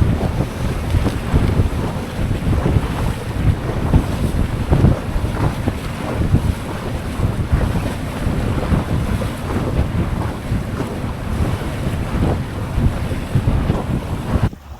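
Wind buffeting the microphone over the rush of waves and water against a small sailing yacht, gusting unevenly; the sound drops off suddenly near the end.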